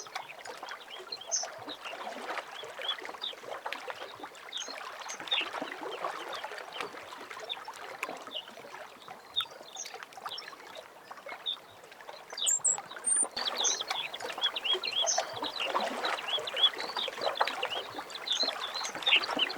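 Early-morning birdsong, many birds chirping, over small lake waves lapping. The birdsong grows louder and busier about two-thirds of the way through.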